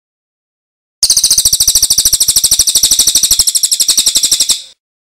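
Recorded bird call: a loud, fast, high-pitched trill of rapid, evenly spaced notes. It starts about a second in and lasts about three and a half seconds before stopping abruptly.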